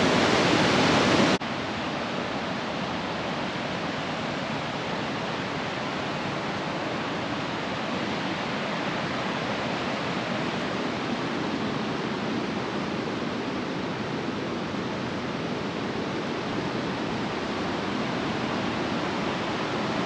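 Waterfall rushing in a steady, even roar of falling water. It is louder for about the first second and a half, then drops suddenly to a slightly softer, steady rush.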